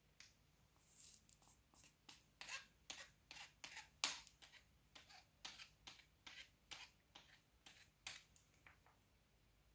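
Faint crackling of hot solder flux under a 60 W soldering iron's tip: irregular sharp little crackles and clicks, two or three a second, starting about a second in and dying away shortly before the end.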